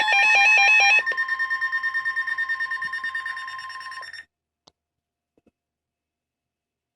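Layered electronic emergency alert tones: a steady tone with a rapid beeping warble pulsing about ten times a second, fading out about four seconds in, followed by silence with a couple of faint clicks.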